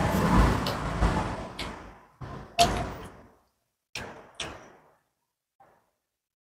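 Mealtime table sounds on clip-on microphones: four short clicks and knocks from eating by hand and handling a drinking glass, spaced a second or two apart, after background noise fades out in the first two seconds.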